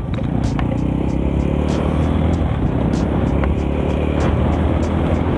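Rusi Korak 110cc motorcycle's small single-cylinder engine running steadily under way, heard close on the rider's phone.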